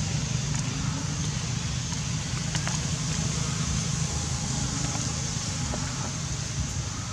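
Steady outdoor background noise: a low rumble with a hiss over it and a few faint clicks.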